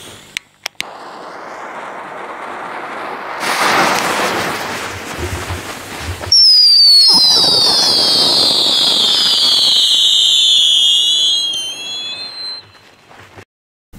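Whistling fireworks: a hiss builds for a few seconds into a louder rush, then about six seconds in several shrill whistles start together and slide slowly down in pitch for about five seconds before dying away.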